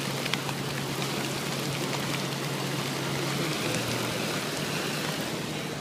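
Heavy rain pelting a car as it drives, with a steady low hum from the car underneath that drops slightly a little past halfway.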